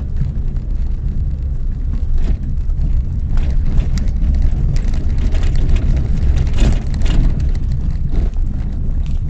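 Mitsubishi Pajero Mini driving over a rough gravel track: a steady low engine and road rumble, with repeated crunches and knocks of stones under the tyres.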